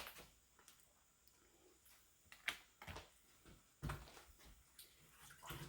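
Near silence, with a few faint, short clicks and soft knocks of things being handled.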